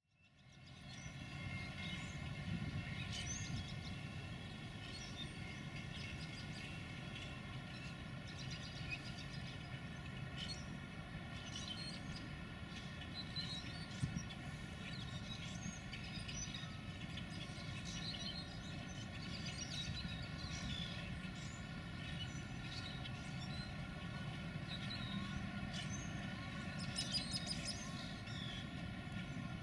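Steady low rumble of an Aberdeen and Rockfish Railroad diesel locomotive approaching from a distance, with small birds chirping throughout.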